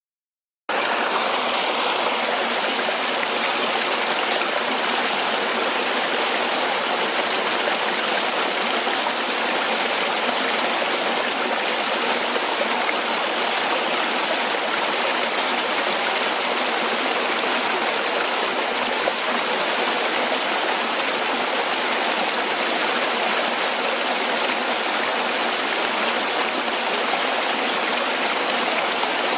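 Small stream cascading down a little waterfall over rocks: a steady rush of water that starts suddenly under a second in after silence.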